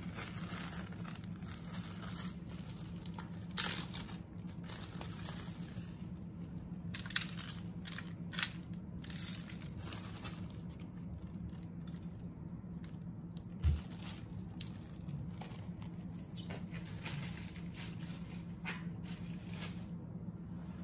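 Soft crinkling and light clicks of hands and packaging working over a foil pan while dry seasoning is sprinkled and rubbed onto a whole catfish. A soft thump comes about two-thirds of the way through, over a low steady hum.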